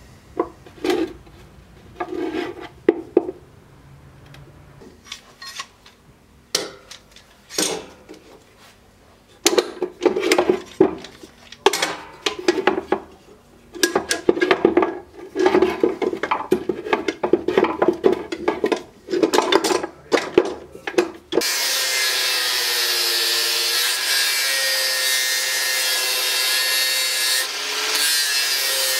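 Irregular scraping strokes of a hand tool on a clamped wooden sword-handle block, coming in short runs. About three-quarters of the way through, this switches abruptly to the steady whine of an angle grinder with a sanding disc grinding the wooden handle.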